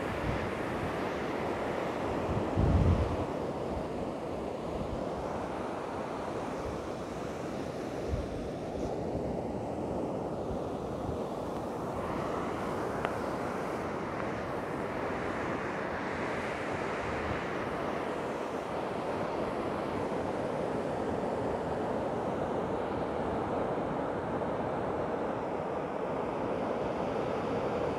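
Surf washing up and over wet sand at the shoreline, a continuous rushing hiss that swells and fades as each wash comes in and drains back, with wind blowing on the microphone. A brief loud low rumble about three seconds in.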